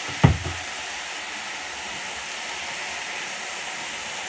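Chopped vegetables frying in a hot pan, sizzling and hissing steadily with steam as balsamic vinegar hits the hot oil. A single sharp knock about a quarter second in.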